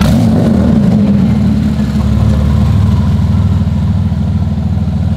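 Lamborghini Aventador V12 with an aftermarket 1K Motorsports exhaust, heard from behind as it fires up: a sudden loud start, then a loud, steady high idle.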